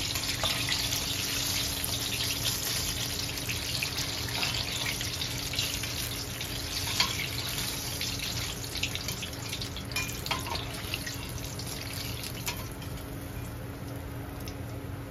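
Chicken wings deep-frying in hot oil, a dense sizzle full of small crackles that thins out and quietens near the end. A few sharper clicks come from the metal skimmer knocking against the wire rack and the pan.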